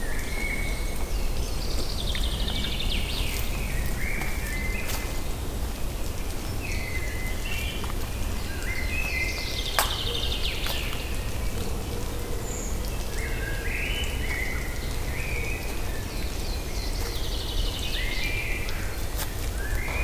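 A songbird singing the same phrase about every six to seven seconds, a falling trill and then a few short stepped notes, over a steady low rumble and hiss. One sharp click sounds about halfway through.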